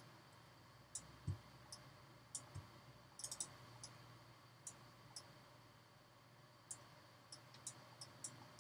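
Computer mouse clicking: a dozen or so short, sharp clicks at irregular intervals, some in quick runs, over a faint steady hum. Two soft low thumps come about a second and a half and two and a half seconds in.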